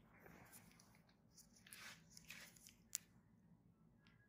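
Near silence: faint rustling, with one sharp click about three seconds in and a smaller click near the end.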